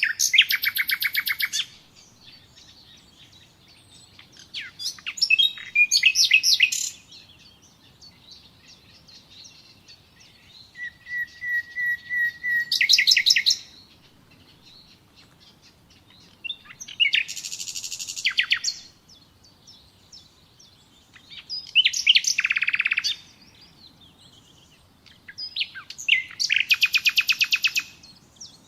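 Nightingale singing in separate phrases of two to three seconds with short pauses between them, six phrases in all, built from fast rattling trills and whistled notes. About halfway through, a run of soft repeated whistles swells into a loud trill.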